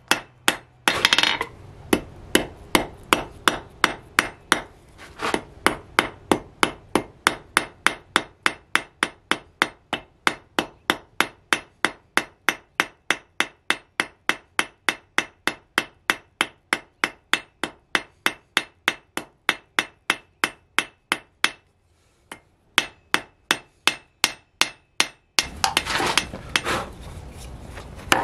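Hand hammer striking red-hot steel on an anvil, drawing out a taper, in an even rhythm of about three sharp ringing blows a second. The blows pause briefly about three-quarters of the way through, and near the end a steady hiss joins them as the hot steel is hammered on a wooden block.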